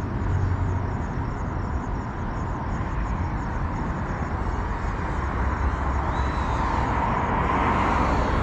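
Outdoor rumble and wind noise on the microphone, with the buzz of a ducted FPV cinewhoop drone's motors that grows a little louder about seven seconds in.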